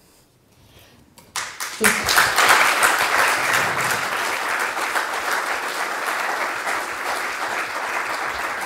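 Audience applause: after a short pause it breaks out about a second and a half in, swells quickly and keeps going steadily.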